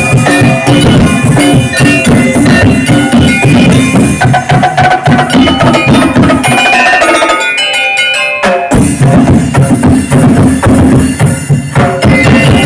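Music driven by a fast, loud percussion beat. The beat drops away for about a second a little past the middle, then comes back.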